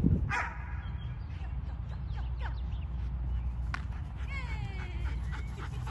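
Short animal calls, a few of them falling in pitch about four seconds in, over a steady low rumble, with a thump at the very start.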